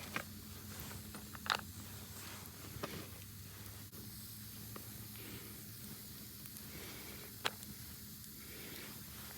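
Campfire hissing steadily with a few sharp crackles, the loudest about a second and a half in and again near the end.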